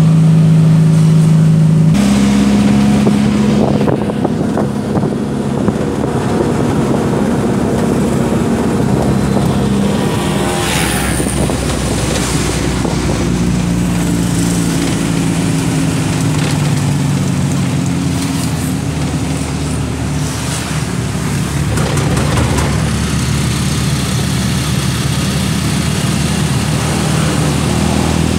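Engine and road noise heard from inside a moving car: a steady engine hum whose pitch shifts a few times, over continuous tyre and wind noise.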